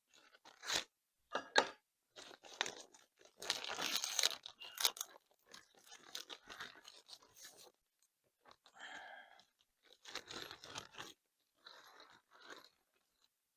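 Crinkling and tearing of the plastic packaging of a carburetor rebuild kit being opened, in irregular crackly bursts with sharp clicks.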